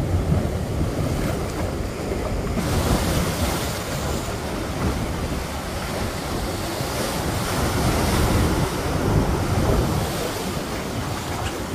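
Ocean surf breaking and splashing against the granite boulders of a seawall, with wind buffeting the microphone. The hiss of the spray grows stronger a little over two seconds in.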